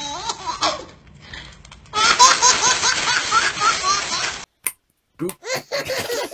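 A baby laughing hard in quick repeated bursts, about four a second, over the crinkle of clear plastic being handled. About four seconds in it cuts off, and other babies' softer, broken laughter follows.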